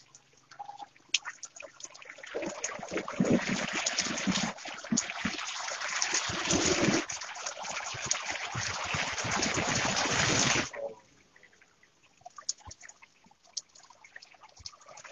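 Heavy rain pouring onto a flooded road and yard: a dense hiss of rain and splashing water that builds over the first couple of seconds. About eleven seconds in it cuts off abruptly, leaving only faint drips and trickling.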